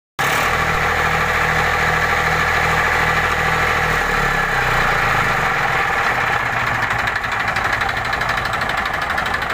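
Massey Ferguson 5245 DI tractor's diesel engine running steadily with its repaired alternator fitted, at the stage where the alternator is run up and checked. Its low, even beat changes about four seconds in.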